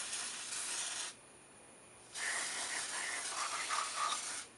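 Aerosol can of carburettor cleaner spraying in two bursts of hiss: the first stops about a second in, and the second starts about two seconds in and runs until just before the end.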